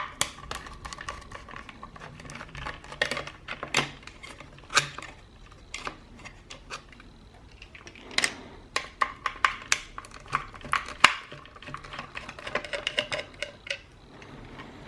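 Irregular light clicks and taps of a screwdriver and small screws against a plastic speaker housing, as screws are backed out and set down one after another.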